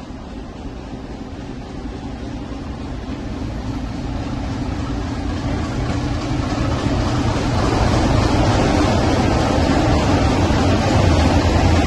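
Diesel locomotive engine running with a low, steady drone, growing steadily louder over the whole stretch and loudest near the end.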